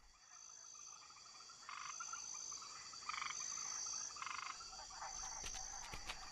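Night ambience of frogs croaking: three short trilled croaks about a second and a half apart, over a thin, steady high insect chirring.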